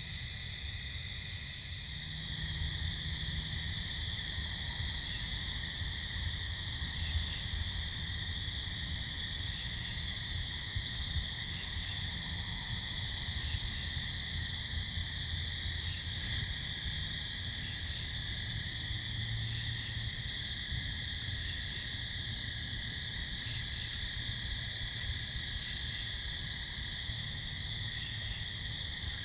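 Night insect chorus of crickets: a steady high-pitched trilling, with fainter chirps repeating at regular intervals over a low rumble.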